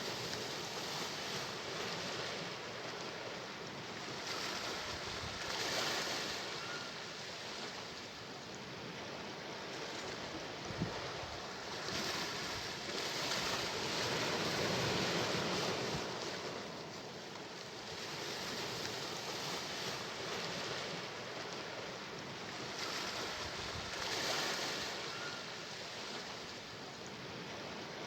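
Sea waves washing onto the shore. The surf swells and fades every several seconds, with the longest, loudest surge about halfway through.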